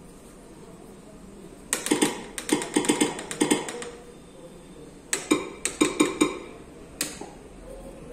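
Stylus tapping on the glass touchscreen of an interactive flat panel, typing on its on-screen keyboard: a quick run of taps about two seconds in, a shorter run about five seconds in, and one last tap near the end.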